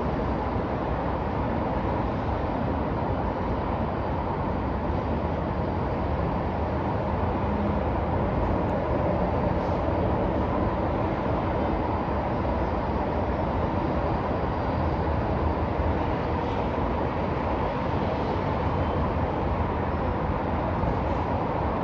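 Downtown city street ambience: a steady, unbroken rumble of passing traffic.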